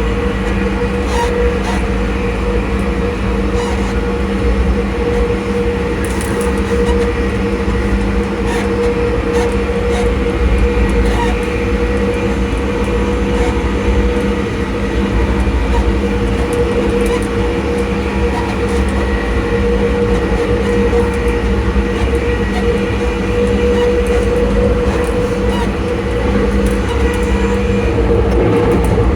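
ScotRail Class 334 electric multiple unit's traction motors whining steadily as the train runs at an even speed. The whine sits over the low rumble of the wheels on the track.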